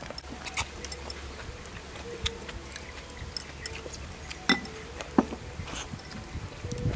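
Someone eating soup with chopsticks from a porcelain bowl: a handful of sharp clicks spread through, with quiet chewing between them.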